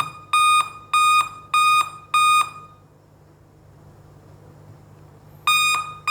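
Dell laptop beeping on and off in a steady run of short, high, single-pitched beeps, about one every 0.6 seconds. It stops for about three seconds, then starts again near the end. This continuous beeping, which goes on even after the system has switched on, is the fault being repaired.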